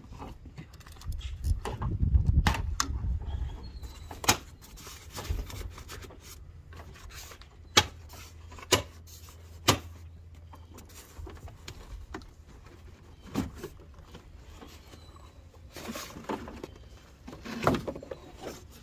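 Scattered clicks and knocks of hard plastic being handled: the spring clips of the truck's air filter box are unlatched and the lid with its intake tube is lifted off. There is a dull rumble about two seconds in and a low hum through the middle.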